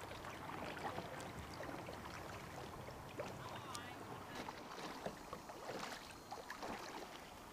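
Kayak paddling: the paddle blades dip in with small, irregular splashes and drips of water.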